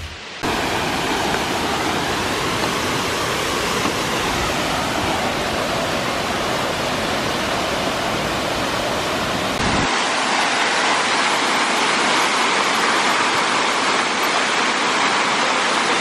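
Waterfall rushing, a steady loud roar of falling water. About ten seconds in it switches abruptly to a thinner hiss without the deep rumble.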